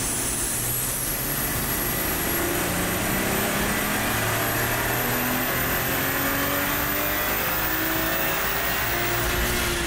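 Toyota A90 Supra's turbocharged 3.0-litre B58 straight-six under full load on a hub dyno during a power run. The engine note climbs slowly and steadily in pitch, with a high whine rising along with it that drops away just before the end.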